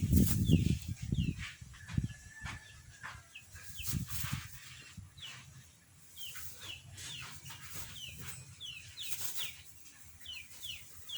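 Birds chirping: repeated short, high chirps that fall in pitch, coming several a second at times, with scattered soft scratchy clicks.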